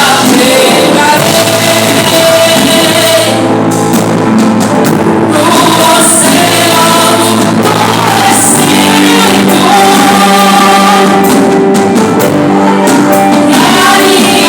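Church worship band playing gospel music live, with voices singing over the instruments, loud and without a break.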